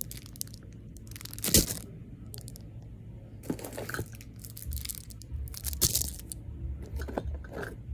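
Packaging crinkling and tearing in short, sharp bursts, the loudest about a second and a half in, as fidget toys are unwrapped and handled.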